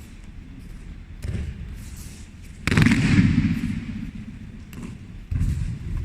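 Heavy thuds of bodies falling onto training mats during aikido practice. The loudest comes near the middle, another near the end and a lighter one about a second in, each ringing on briefly in the hall.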